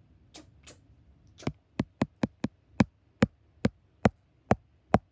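A run of about ten sharp knocks on a hard surface, like chopping on a cutting board. They start about a second and a half in, come quickly at first, then slow to about two a second.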